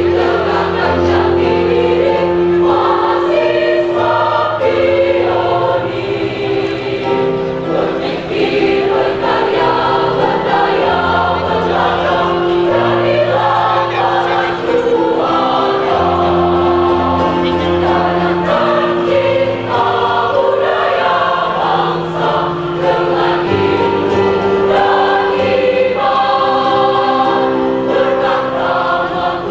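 Women's choir singing a march in several parts.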